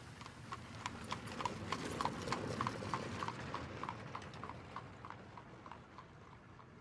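A horse's hooves clip-clopping in a steady rhythm, about three to four clops a second, over a soft hiss. The clops grow louder to a peak about two to three seconds in, then fade away as the horse passes.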